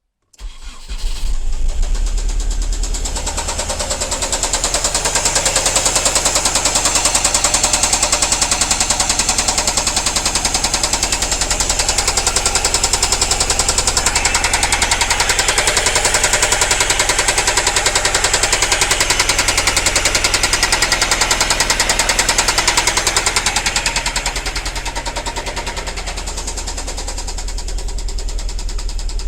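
Nissan Primera P10's SR20 2.0-litre four-cylinder petrol engine starting about half a second in and then running with a strong, fast, rhythmic knock.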